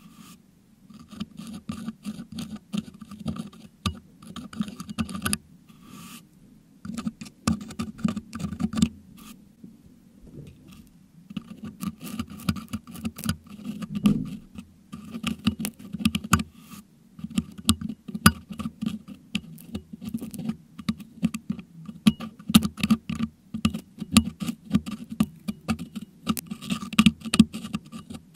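Metal dental hook scraping and picking crushed meringue out of a Blue Yeti microphone's metal grille, right on the microphone: a dense, irregular run of small scratches, ticks and crunches, with two short lulls about six and ten seconds in.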